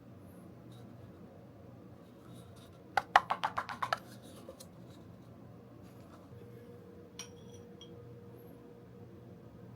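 Dishware clinking: a quick run of about eight ringing clinks, like a utensil rattled against a glass or ceramic bowl. A single lighter clink follows a few seconds later, over a faint steady hum.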